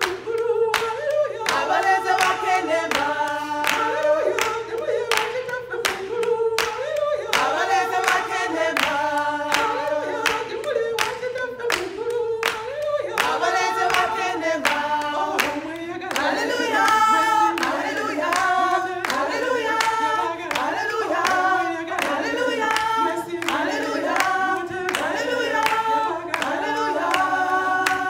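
A small group of women singing a song unaccompanied, with hand claps keeping a steady beat of about two a second.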